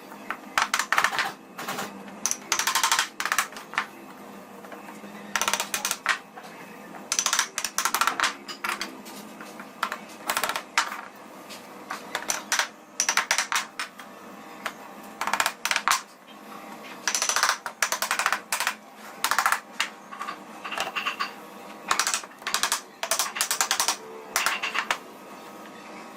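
Woodworking tool work: short bursts of rapid clicking or rattling, each about half a second to a second long, repeating every second or two.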